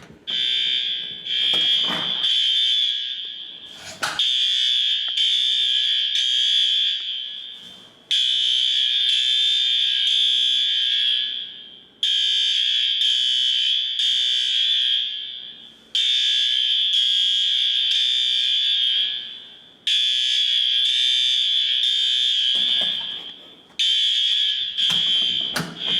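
Building hallway fire alarm sounding: a shrill high electronic tone that repeats in rounds of about four seconds, each round fading out before the next starts abruptly.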